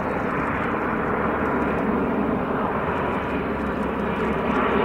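Kawasaki C-2 military transport on approach with gear down, its two General Electric CF6 turbofans making a steady jet rumble and hiss. It grows a little louder near the end as the aircraft draws closer.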